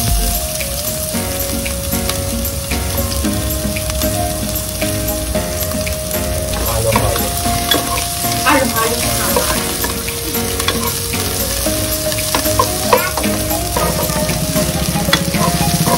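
Sliced shallots and ginger sizzling in hot oil in a nonstick pot while a wooden spatula stirs them, with a few scrapes and knocks of the spatula against the pot. Sustained tones that change pitch every few seconds run underneath.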